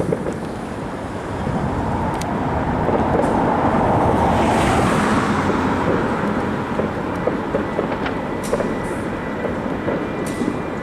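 Road traffic noise with a vehicle engine running, swelling to its loudest about four to five seconds in and easing off again, with a few short sharp cracks.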